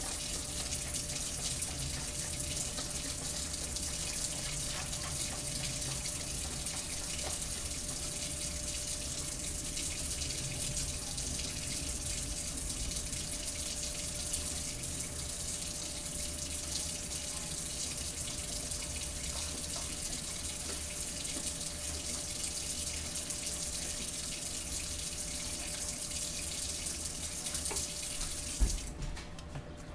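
Kitchen tap running in a steady rushing hiss, then turned off suddenly with a light knock near the end.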